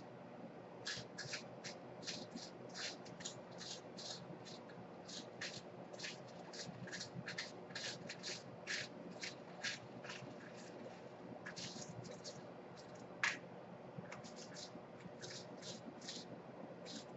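Faint, irregular clicking and rattling of tiny metal screws being sorted through by hand while a screw is hunted for, several small clicks a second, with one louder tap about 13 seconds in. A low steady hum runs underneath.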